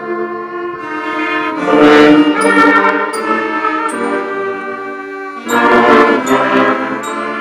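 Slow brass music of held chords that swell louder about two seconds in and again near six seconds.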